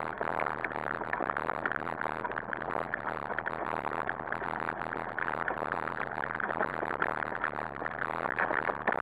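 Steady rattling and rolling noise of a dog-drawn wheeled rig going fast over a dirt trail, picked up by a camera mounted on the rig.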